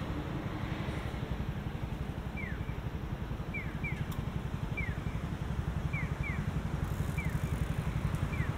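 A steady low mechanical rumble with a fast pulse, like an engine running, over which a bird gives short falling whistled chirps, some in quick pairs, about once a second.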